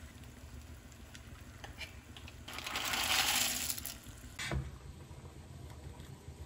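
Dry fusilli poured from a bowl into a pan of boiling water: a rattling rush that swells and fades over about a second and a half, midway through. A single sharp knock follows about a second later.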